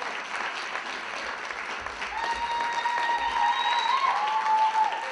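Audience applauding, with a few held voice-like tones rising over the clapping in the second half.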